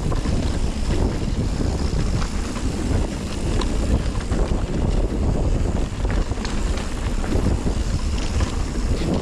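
Wind rushing over the microphone of a camera carried on a rider going down a rough trail, with a heavy rumble and scattered knocks and rattles from riding over the terrain.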